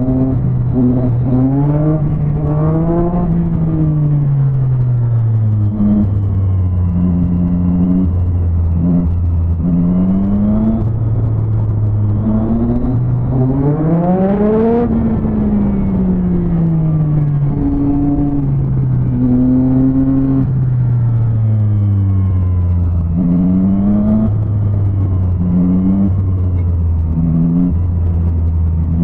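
Motorcycle engine under way, revving up and dropping back again and again as the rider accelerates, shifts and rolls off. About halfway through, passing through a tunnel, it climbs in one long rise to high revs.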